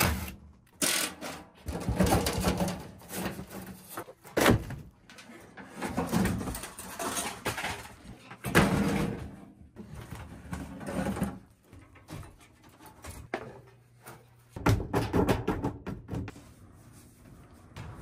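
An old air handler being taken apart: sheet-metal panels and parts clank and thud irregularly, with short runs of a cordless drill backing out screws.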